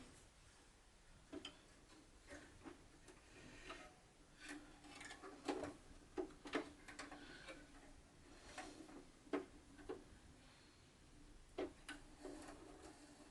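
Scattered light clicks and knocks at uneven intervals, with quiet between them.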